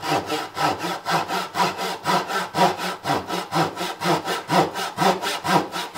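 Japanese backsaw hand-cutting dovetail tails in a wooden board, sawing in quick, even strokes at about three a second.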